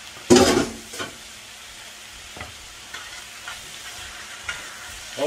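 Rice noodles and greens sizzling softly in a stainless steel frying pan as they are stirred with chopsticks, with a few light clicks of the chopsticks against the pan. A brief loud clatter comes about half a second in.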